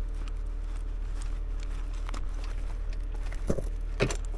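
Steel chain on a timber truck's bunk stake clinking against the metal, with two sharp clinks near the end, over a steady low engine hum.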